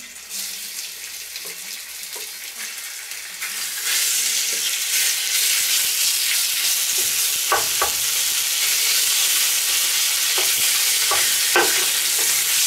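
Cubed beef sizzling in hot clarified butter in a cast-iron Petromax FT12 Dutch oven as the first batch is seared for goulash; the sizzle gets louder about four seconds in as more meat goes in. A wooden spoon stirs the meat and knocks a few times against the bowl and pot.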